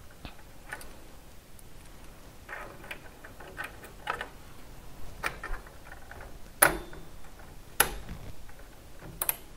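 Light clicks and taps of hardware being fitted inside a micro-ATX computer case, with two sharper snaps in the second half and a quick double click near the end.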